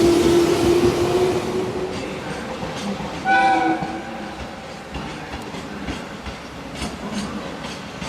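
Train running past and fading away, with a short horn blast about three seconds in.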